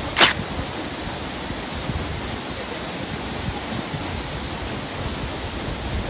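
Waterfall's steady rush of falling water splashing into the pool below. A single short, sharp noise sounds about a quarter second in.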